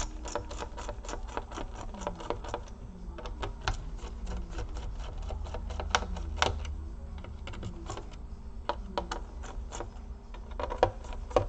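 Small screwdriver undoing the screws that hold a laptop's CPU cooler, a dense, uneven run of light clicks and ticks as the bit turns in the screw heads.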